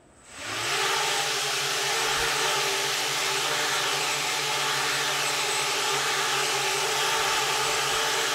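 An FPV racing quadcopter on four 1806-size 2280 kV brushless motors with 3D-printed carbon-fibre-filament props spins up about half a second in. It lifts off into a low hover with a steady, loud motor-and-prop whir over a low hum. The printed props are holding together and giving lift.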